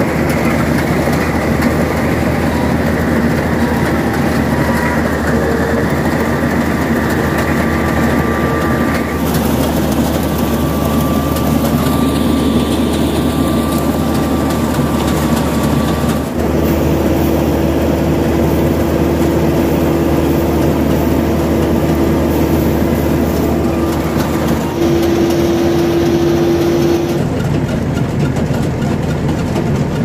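Rice combine harvester running steadily while harvesting, its engine hum mixed with the drone of the header and threshing machinery. Its held tones shift a few times.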